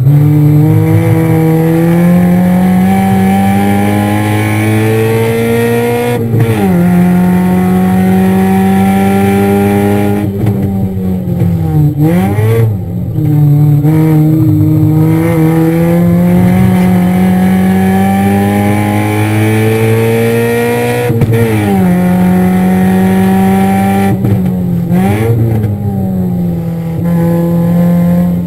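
A car engine under hard acceleration on a race track, heard from inside the car. Its note climbs steadily and drops abruptly about six seconds in and again about twenty-one seconds in, as it shifts up a gear. Around twelve and twenty-five seconds in the revs dip and briefly rise again before settling.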